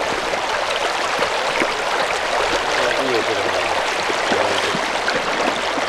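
Clear, shallow river running over a stony bed: a steady rush of water.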